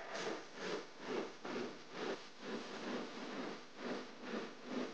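Fishing reel worked against a heavily loaded rod while a big catfish is being fought: a rhythmic rasping, about two pulses a second.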